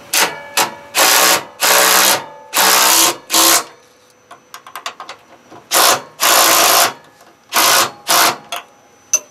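Impact wrench with a socket on an extension running in short bursts of about half a second each, snugging bracket bolts up tight, with a pause of nearly two seconds in the middle.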